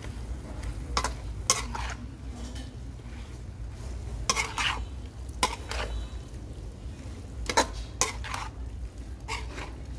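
A metal utensil scraping and clattering against a metal pan while stir-frying wide rice noodles with beef and vegetables. The strokes come irregularly, singly or in quick clusters of two or three, over a steady sizzle of frying.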